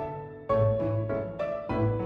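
Background music: piano-led instrumental with a low bass, chords struck about every half second.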